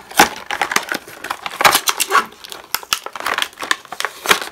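A clear plastic blister pack being pried and peeled open by hand, crinkling and crackling in dense, irregular snaps.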